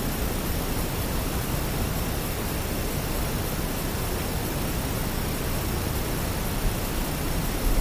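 Steady wind noise on the microphone: an even, rough hiss with an unsteady low rumble, briefly louder near the end.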